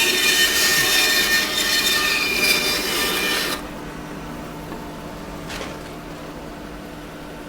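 Bandsaw blade cutting through a dry, split wood offcut with a loud rasping whine. The cut ends about three and a half seconds in, and the saw then runs free with a steady motor hum.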